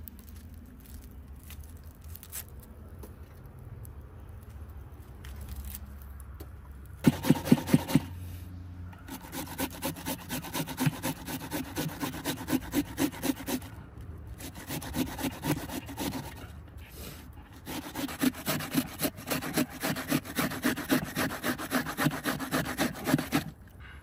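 Rhythmic back-and-forth scraping strokes, about four a second, in several runs with short pauses between them; the first few strokes are the loudest.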